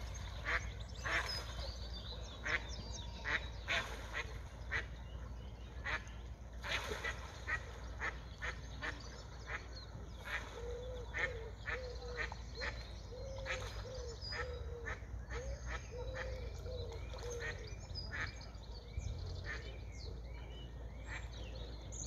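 Ducks quacking on and off, with a run of about a dozen evenly spaced, low quacks in the middle.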